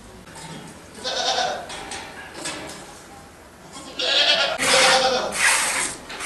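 Goats bleating: one bleat about a second in, then a run of louder bleats about half a second each over the last two seconds.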